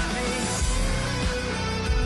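Rock music with guitar, an instrumental stretch with no singing.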